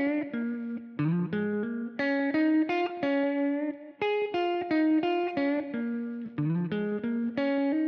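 Electric guitar playing a short single-note minor pentatonic lick over B flat, with a slide up into a note, played twice in a row.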